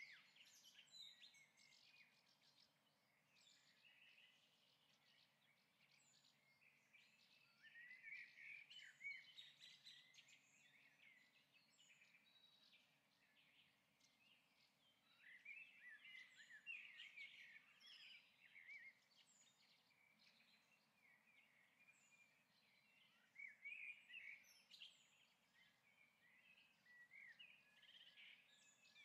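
Faint birds chirping and twittering in short clusters every several seconds, over a low hiss.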